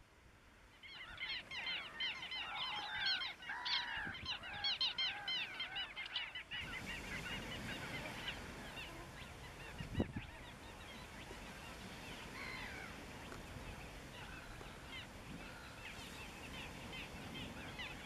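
A flock of waterbirds calling, many short rapid calls overlapping in a dense chorus that is loudest over the first six seconds or so. It then drops to fainter, scattered calls over a steady hiss, with a single thump about ten seconds in.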